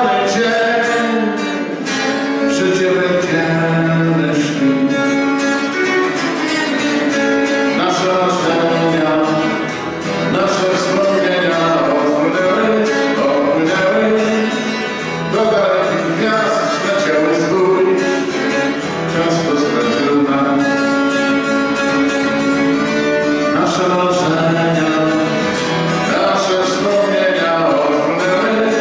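A man singing a song, accompanying himself on a strummed acoustic guitar, performed live through a microphone.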